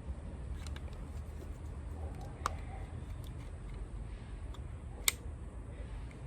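A few light clicks and handling sounds as a blade is fitted into a cordless saw, with a sharp click about five seconds in, over a steady low rumble.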